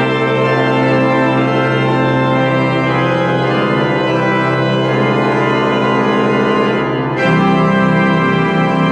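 Church pipe organ playing sustained chords. About seven seconds in it moves to a fuller, slightly louder chord with stronger low notes.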